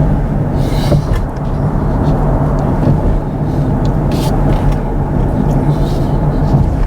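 Steady road and tyre noise inside the cabin of a moving Kia EV6 electric car, a low even hum with no engine note, with a few brief hissy rustles about one, four and six seconds in.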